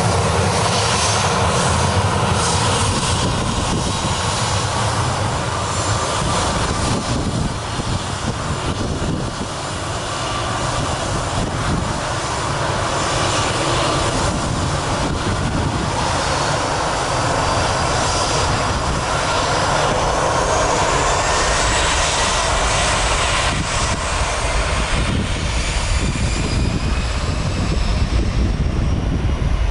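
Boeing 737 twin CFM56 turbofan engines running as the jet moves along the runway: a steady engine roar and whine. In the last ten seconds the whine rises in pitch and the low rumble grows as the engines spool up to takeoff thrust.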